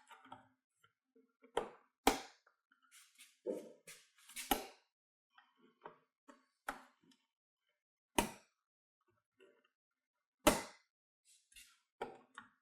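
Scattered sharp plastic clicks and knocks, about half a dozen louder ones among fainter ticks, as a plastic pry tool works the glass of a Skoda Octavia's door mirror loose from its small retaining clips.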